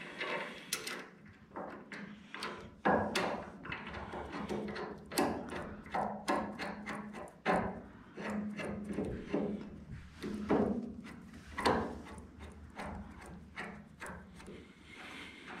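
Bolts, washers and a steel caliper mounting bracket being handled and fitted onto a front suspension spindle: irregular metal clicks, clinks and knocks, over a faint steady hum.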